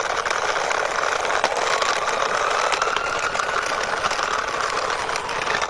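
Plastic toy ambulance pushed along by hand onto a toy transporter truck, its small wheels giving a steady rattling whir with a faint, slightly rising whine.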